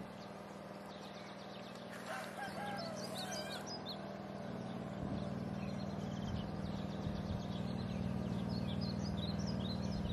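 Small birds chirping in short bursts, about two seconds in and again near the end, over a steady low mechanical hum.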